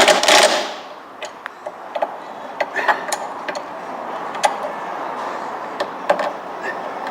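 Hand tools clicking and tapping on metal as a bolt is fitted to a car's suspension bottom link: irregular light clicks, with one louder knock at the start.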